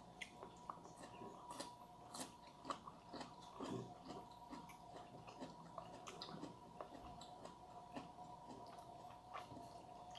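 Quiet eating sounds: chewing, with scattered light clicks of chopsticks against a bowl and plate. A faint steady whine runs underneath.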